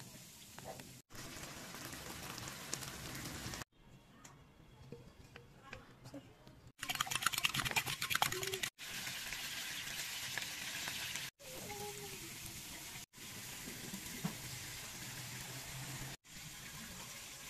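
Hot oil sizzling in a wok, heard across several short cuts. In the middle, a fork beats eggs in a bowl with fast clinking strokes for about two seconds, the loudest part.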